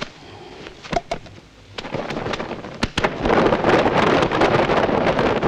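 Fight-scene soundtrack: a few sharp clacks, then from a little past halfway a loud, continuous rushing noise with more clacks over it.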